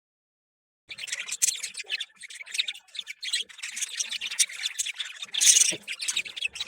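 Rapid scratchy rubbing and scrubbing close to the microphone, a cloth wiped back and forth over a budgie's feathers. It starts about a second in and keeps up in quick strokes.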